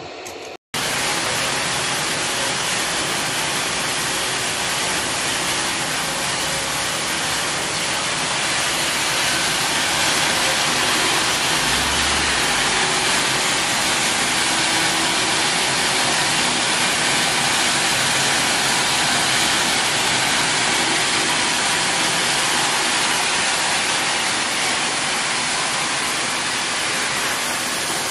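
Battery-recycling plant machinery running: a loud, steady, even din of crushers and motors with a faint hum underneath, cutting in abruptly just under a second in.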